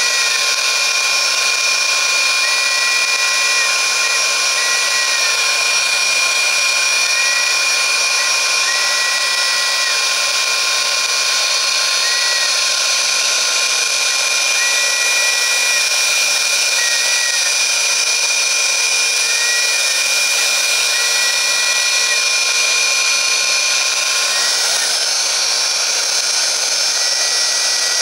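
CNC router running: the spindle motor gives a steady high whine with several held tones. The stepper motors moving the axes add short rising-and-falling whistles every second or two as the carriage moves. One of the lower held tones drops out about 24 seconds in.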